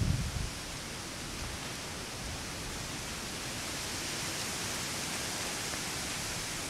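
Steady, even hiss with a brief low thump right at the start.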